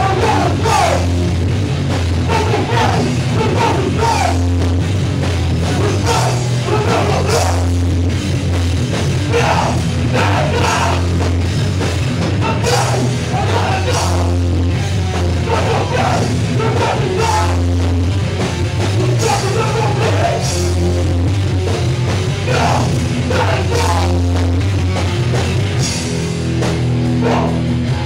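Hardcore punk band playing live at full volume: guitars, bass and drums in a fast, dense, continuous song, heard from within the crowd.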